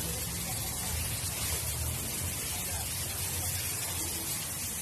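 Gravity-feed paint spray gun hissing steadily with compressed air as it sprays primer onto a car body panel, with a low rumble underneath.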